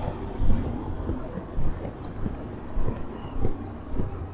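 Street traffic passing close by: an auto-rickshaw's small engine running beside the listener, then motorcycles riding past, with a low steady rumble and the regular thud of walking footsteps.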